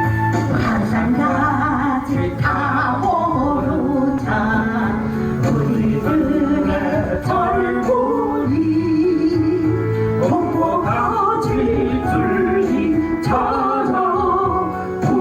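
A solo voice singing a Korean Christian praise song with vibrato over recorded instrumental backing.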